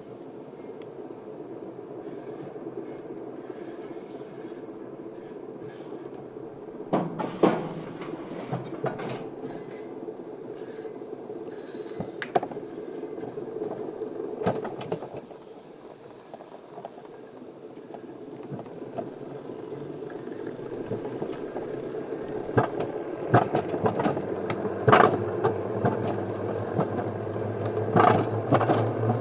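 Wiegand alpine coaster sled running along its raised tubular steel rails: a steady rolling rumble with sharp clacks and rattles now and then. Over the last several seconds a low mechanical hum comes in and slowly rises in pitch, and the clacks grow more frequent.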